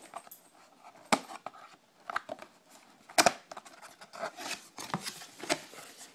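Cardboard box being opened and handled: sharp knocks and snaps about a second in, the loudest at about three seconds and another near the end, with scraping and rustling of cardboard and packing between.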